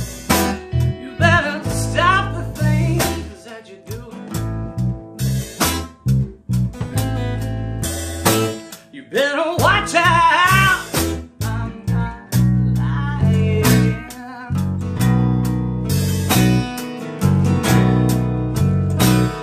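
A blues band of acoustic guitar, electric guitar, bass guitar and drum kit playing, with a male voice singing in two passages, about a second in and again near the middle.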